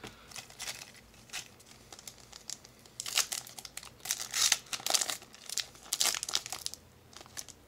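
Foil wrapper of a Yu-Gi-Oh! booster pack crinkling in the hands and being torn open at the top. It is sparse at first and gets louder and busier about three seconds in.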